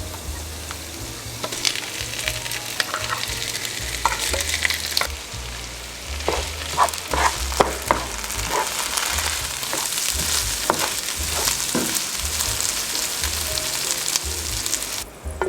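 Corned beef and potato hash frying in a pan, a steady sizzle, with a utensil scraping and clicking against the pan as it is stirred. The sizzle cuts off suddenly near the end.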